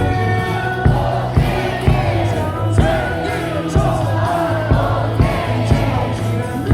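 Baseball stadium cheer song playing over the loudspeakers, with a crowd of fans singing along to sharp, recurring beats.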